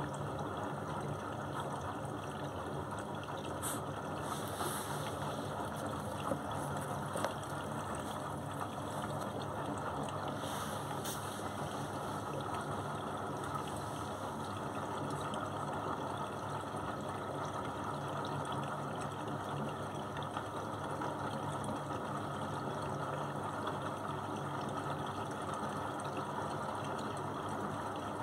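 Beko front-loading washing machine running with water and laundry in the drum: a steady mix of sloshing water and motor hum. A few faint clicks come about 4 and 11 seconds in.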